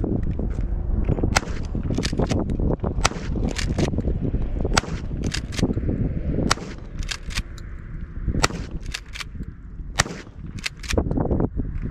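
Irregular gunshots on an outdoor shooting range: a dozen or more sharp cracks at uneven spacing, some close together in pairs and threes, over a steady low rumble of wind on the microphone.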